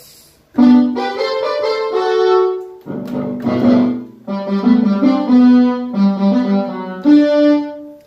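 Roland D-50 synthesizer playing its brass factory patch: held chords in a few short phrases, starting about half a second in.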